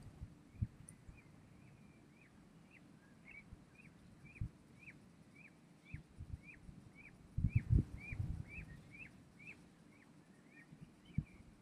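A bird repeating one short, quick call note about two times a second. Low thumps run beneath it, with a cluster of them about seven and a half seconds in.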